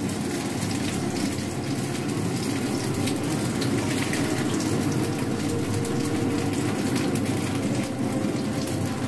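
Hot oil sizzling steadily in a frying pan where slices of steamed turnip cake (lobak pudding) are frying.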